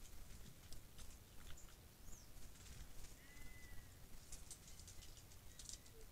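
Faint forest ambience: scattered soft ticks and rustles over a low rumble, with one short whistled bird note a little after three seconds in.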